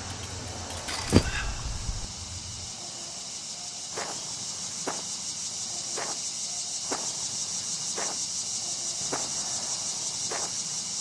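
Insects chirring steadily, high-pitched. There is a sharp knock about a second in, and footsteps on gravel about once a second from around four seconds in.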